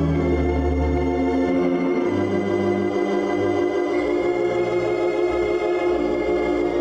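Ballroom organ music: sustained organ chords over a bass line whose notes change every second or so.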